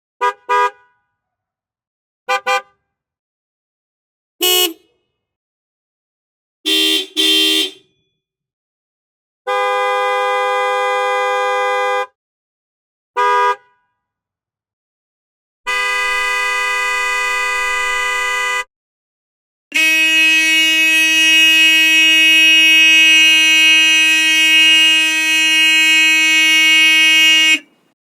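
A series of car horn sounds separated by silences: a quick double beep, single short taps, another double beep, then longer blasts of two to three seconds, ending with one long blast held for about eight seconds.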